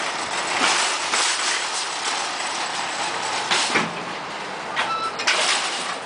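Wire shopping cart rattling continuously as it is pushed over asphalt, with louder surges about three and a half and five and a half seconds in.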